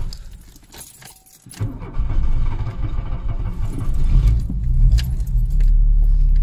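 Keys jangling at the ignition, then the carburetted 1.6 four-cylinder petrol engine of a Mk2 Volkswagen Golf starting from cold on choke. It runs unevenly at first, then settles into a steady idle near the end. It caught readily despite the Weber carburettor conversion's reputation for hard morning starts.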